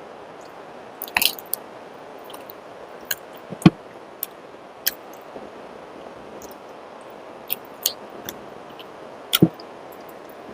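Close-miked eating sounds: irregular wet mouth clicks and smacks while chewing, over a steady background hiss.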